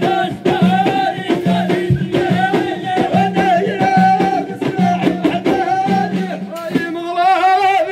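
Moroccan folk group performing: men's voices singing over hand frame drums beaten in a steady, driving rhythm. Near the end the drumming stops and one voice carries on alone with a wavering, ornamented line.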